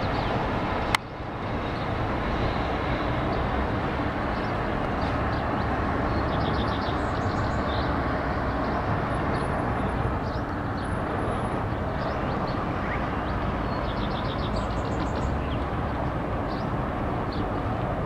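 Steady background rumble of traffic, with faint high chirps and a few short rapid trills of small songbirds scattered through. A sharp click about a second in.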